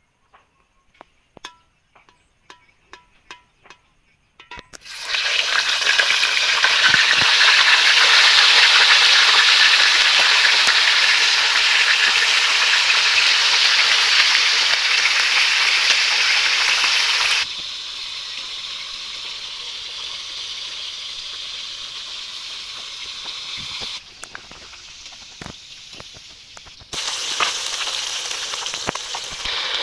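Food sizzling loudly in hot cooking oil, starting suddenly about five seconds in after a few light clicks. The sizzle drops abruptly to a quieter level partway through and swells again near the end.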